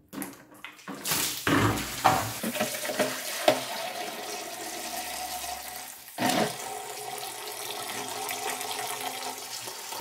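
Water pouring in a steady stream from the drain outlet at the base of a Parkside PWD 30 A1 wet and dry vacuum's stainless steel tank into a bucket as the tank is emptied. It starts about a second in, once the drain cap is off, with a few knocks along the way.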